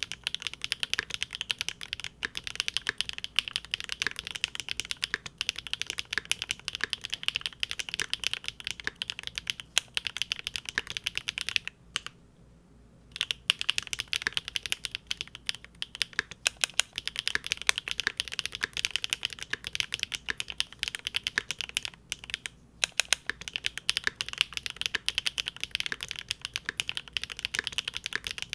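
Fast, continuous typing on a Linworks Big Whale custom mechanical keyboard with GEON Raw Zero switches on a polycarbonate plate, a rapid stream of key clacks. The typing stops for about a second roughly twelve seconds in, then resumes.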